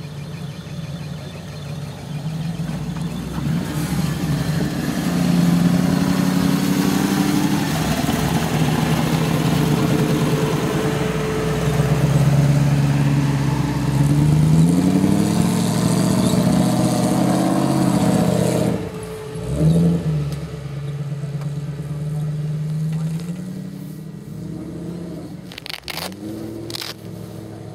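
Off-road trial buggy's engine revving hard under load on a steep grass climb, its pitch rising and falling with the throttle and a sharp break about two-thirds of the way through. It then settles to a steadier, lower note that fades, with a few sharp clicks near the end.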